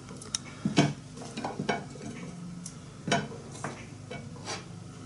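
Irregular light knocks and clicks of kitchen handling: beet slices and a knife moved about on a wooden cutting board and set down on a ceramic plate.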